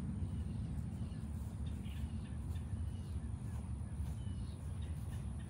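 Outdoor ambience: a steady low rumble with scattered short, faint bird calls over it.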